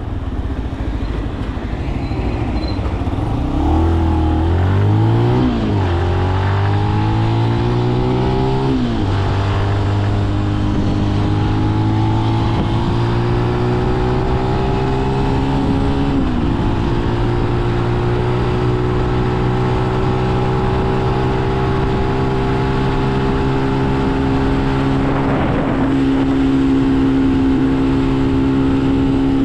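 Benelli BN125 motorcycle's single-cylinder four-stroke engine accelerating up through the gears. Its pitch climbs and drops back at each upshift, three times in the first half, and it then settles into a steady cruise over rushing wind.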